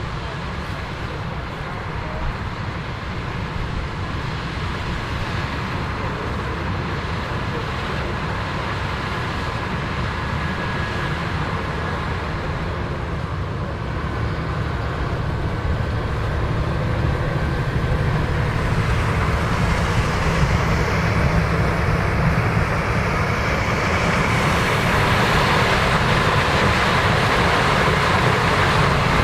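Combines and tractors harvesting corn: a steady, heavy diesel machinery drone with a broad mechanical rush. It grows louder over the last ten seconds or so.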